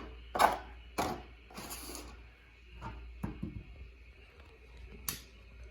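Handling noises: a handful of brief knocks and rustles, spaced irregularly, as a diecast model plane and its packaging are moved about by hand.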